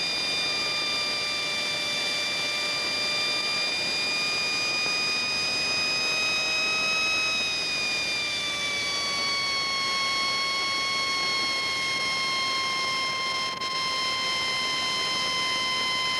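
Simjet 1200 model jet turbine in its cool-down sequence: a steady whine over an airy hiss, its pitch sinking slowly from about halfway through as the rotor slows.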